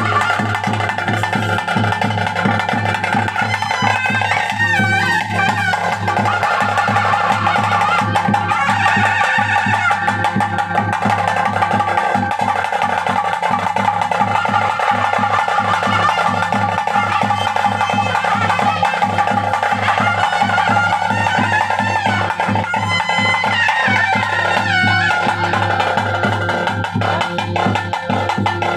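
Traditional daiva kola ritual music: a wind instrument holds a sustained, wavering melody over continuous drumming.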